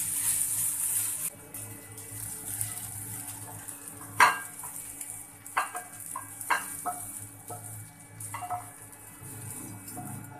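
Stir-fried noodles sizzling in a non-stick pan as a wooden spatula stirs them and scrapes them out onto a plate. The sizzle is loudest for the first second or so, then fainter, with several sharp knocks from about four seconds in.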